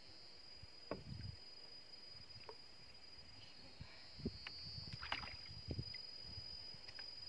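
A few dull knocks against a small boat's hull as rods and line are handled, with a brief rattle about five seconds in, over a steady high-pitched insect drone.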